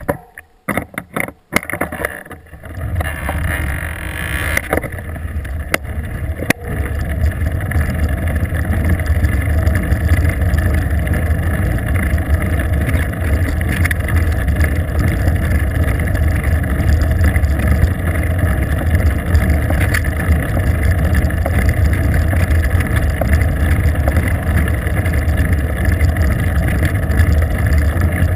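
Steady wind and road rumble on a bicycle-mounted GoPro as the bike rides along asphalt. A few sharp knocks come in the first couple of seconds, and the rumble grows a little louder about six seconds in.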